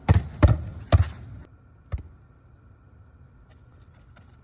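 A ball thumping four times, three quick thumps in the first second and one more about a second later.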